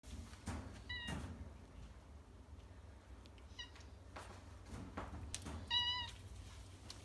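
A cat giving short, high meows: one about a second in, a faint chirp-like one midway, and a slightly longer one near the end, with a few soft knocks and rustles between them.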